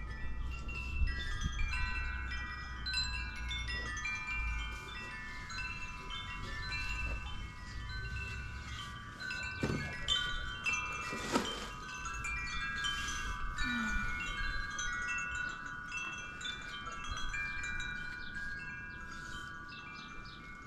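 Tubular metal wind chimes ringing in the breeze, many overlapping notes struck at random throughout.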